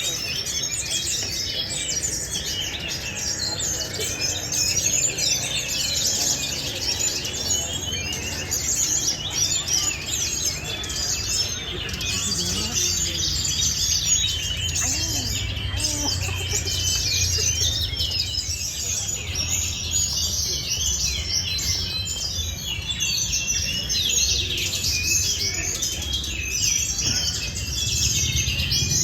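Caged songbirds singing all at once, a dense overlapping chatter of high chirps and trills that goes on without pause.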